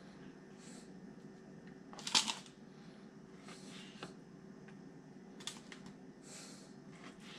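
Quiet handling sounds of a knife and raw flounder fillet on a plastic cutting board: soft scrapes and a few light clicks, the loudest about two seconds in, over a faint steady hum.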